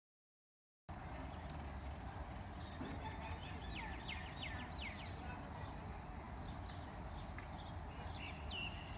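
Bird calls over steady outdoor background noise: a quick run of five or so sharp chirps a few seconds in, and a single falling whistle near the end. The sound cuts in abruptly about a second in, after dead silence.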